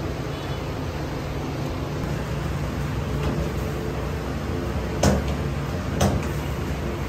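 Steady low mechanical hum of bakery machinery, with two sharp knocks about a second apart near the end.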